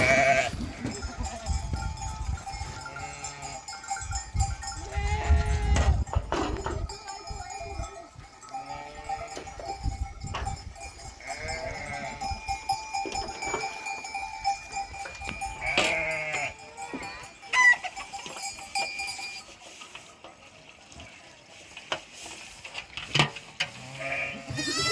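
A flock of sheep and goats bleating, with many overlapping calls and livestock bells clanking among them.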